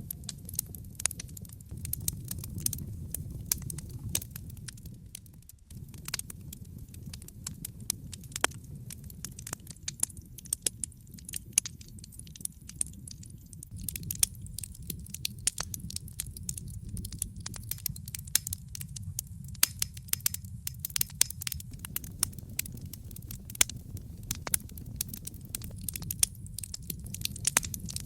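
Wood fire crackling, with frequent irregular sharp pops and snaps over a low, steady rumble of the flames.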